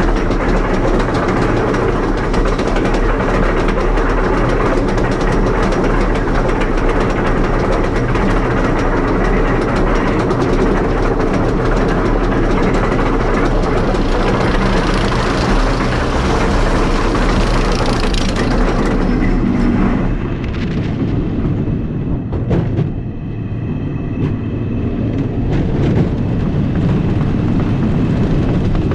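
Wooden roller coaster train climbing a chain lift hill: a steady clanking rattle of the lift chain and anti-rollback clicking. About twenty seconds in the train crests and drops, and the sound turns to a lower rushing rumble of the wheels on the track.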